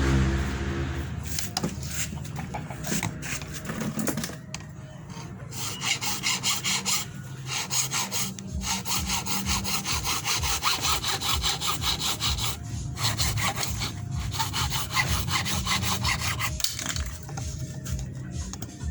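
Hand saw cutting with steady, repeated back-and-forth strokes.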